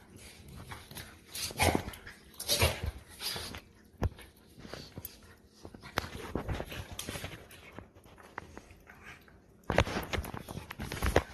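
Two dogs play-fighting, a small one and a larger one, making irregular bursts of dog noise. The loudest cluster comes near the end.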